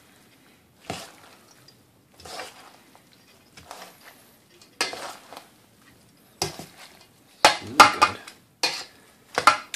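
Metal tongs tossing rice noodles, vegetables and shrimp in a stainless steel bowl: irregular clinks and scrapes of metal on metal, about one a second at first, then faster and louder in the last few seconds.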